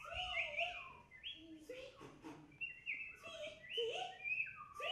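Bird-like chirping and whistled calls, several overlapping, each a short call that glides up or down in pitch.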